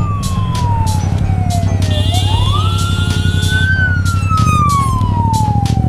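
An emergency vehicle's siren wailing in slow sweeps: the pitch falls for about two seconds, rises quickly, then falls slowly again.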